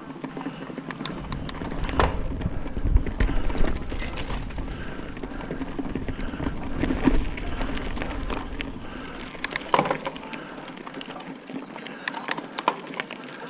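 Santa Cruz Hightower LT mountain bike rolling down a dirt singletrack: tyre noise on the trail with sharp clicks and rattles of the bike over bumps, loudest near the start, about ten seconds in and again near the end. A low wind rumble on the microphone runs from about a second in to about ten seconds.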